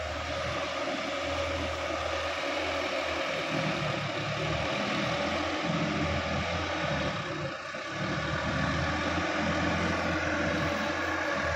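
Sonalika DI-50 RX tractor's diesel engine running steadily under way, heard across a flooded field, briefly dipping in loudness about two thirds of the way in.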